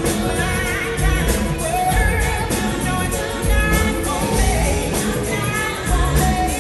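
Live pop-rock band music with a woman singing over it and a strong low beat.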